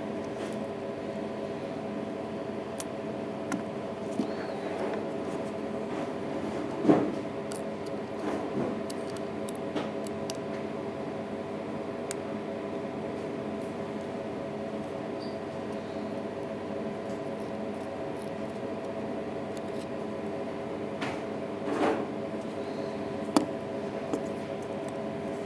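Steady hum with several fixed tones, under a few scattered light clicks and knocks; the sharpest come about seven seconds in and twice near the end.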